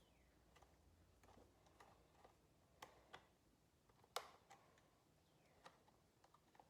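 Faint scattered clicks and taps of small chainsaw parts being handled while the throttle linkage is worked into place, with one sharper click about four seconds in.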